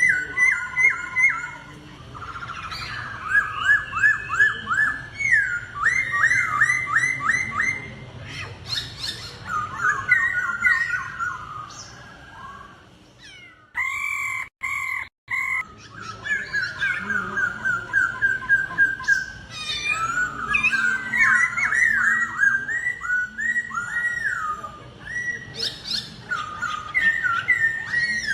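Laughingthrush (khướu) singing in duel style: loud, varied phrases of quick repeated whistled notes, broken by a brief pause about halfway through.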